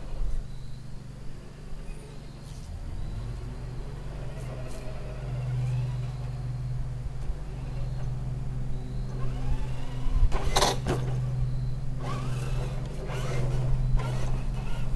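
Traxxas K5 Blazer RC crawler's electric motor and gears whining as it drives, the pitch rising and falling, over a steady low hum. A few sharp knocks come about ten seconds in and again near the end.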